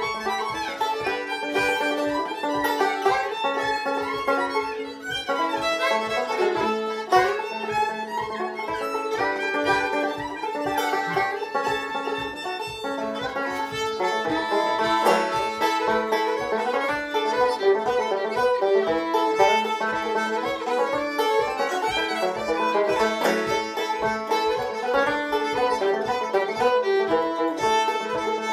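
A fiddle and a banjo playing a tune together: the fiddle bowing the melody over the banjo's steady picked notes, continuously throughout.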